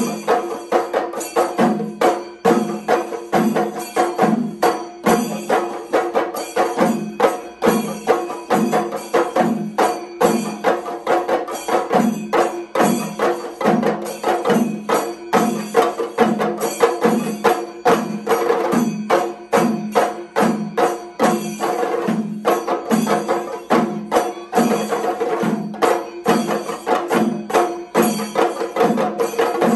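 Panchari melam played by a large ensemble of chenda drums beaten with sticks: dense, fast stick strokes over a regular deeper beat that repeats steadily, with the metallic ring of ilathalam cymbals.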